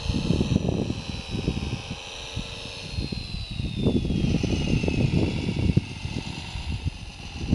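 Wind buffeting the microphone in uneven gusts, over the thin high electric whine of a 1/14-scale radio-controlled Komatsu WA470-6 wheel loader; the whine slides down in pitch about halfway through.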